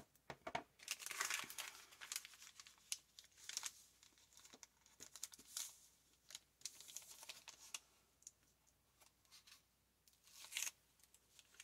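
Brown kraft paper bag crinkling and rustling in irregular bursts as it is handled, its bottom flap taped and pressed down.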